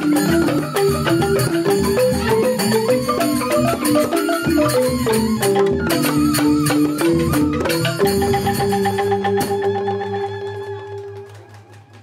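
Balinese joged bumbung gamelan: bamboo xylophones (grantang) playing a fast, busy melody with suling bamboo flutes and drum strokes. About eight seconds in the ensemble stops on a final chord that rings on and fades out.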